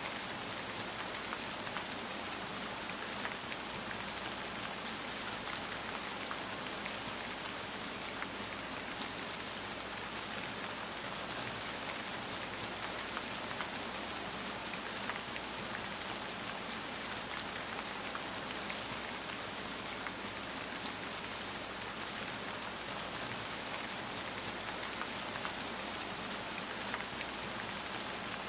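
Steady rain falling, an even hiss dotted with the small ticks of individual drops hitting a surface.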